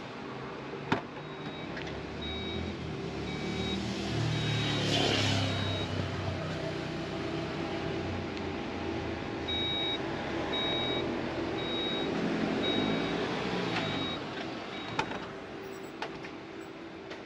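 Škoda Enyaq iV power tailgate with its factory warning tone switched on: a sharp latch click, then steady high beeps about twice a second while the tailgate opens, and again while it closes, ending in two knocks as the latch shuts. Passing traffic swells in the background twice.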